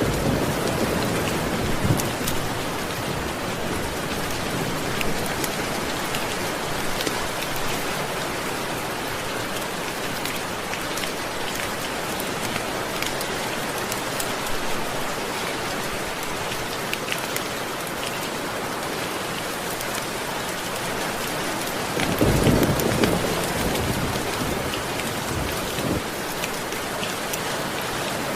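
Steady rain falling, with low rumbles of thunder: a soft one at the start and a louder roll about 22 seconds in.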